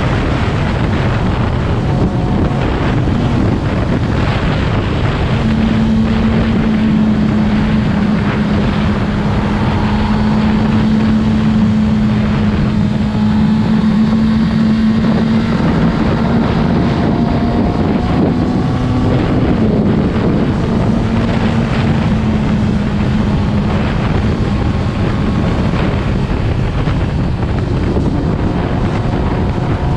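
2020 Yamaha YZF-R6's inline-four engine running under way, with heavy wind buffeting on the microphone. A steady humming tone holds from about five seconds in until a few seconds before the end.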